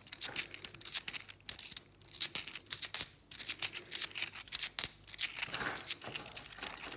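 Cupronickel 50p coins clicking and clinking against each other as they are thumbed one at a time off a small stack held in the palm, a quick irregular run of sharp metallic clicks with short pauses.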